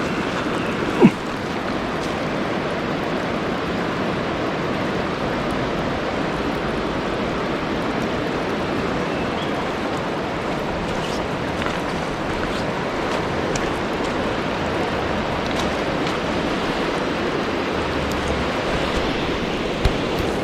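Steady rush of a mountain river's flowing water. A brief sharp knock about a second in, and a smaller one near the end.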